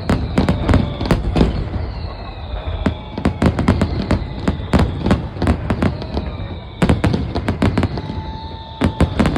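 Aerial fireworks display: rapid volleys of sharp bangs and crackles over a low rumble, with a few whistles that fall in pitch.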